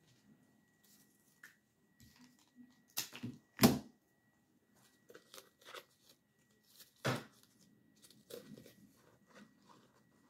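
Scattered rustling and crinkling as flower stems and sprigs are handled and pushed into a flower arrangement, with a few sharp knocks, the loudest about a third of the way in and another past the middle.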